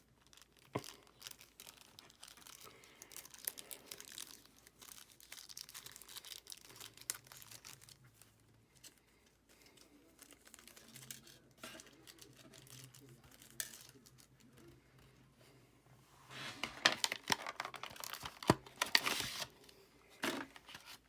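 Small plastic packet of screws being handled, crinkled and torn open, with scattered light clicks. The crinkling is loudest and busiest near the end.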